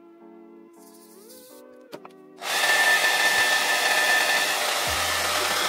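Soft background music, then a couple of clicks and a handheld hair dryer switched on about two and a half seconds in, blowing loudly and steadily with a thin whine. It is drying the glue under a wig's lace front.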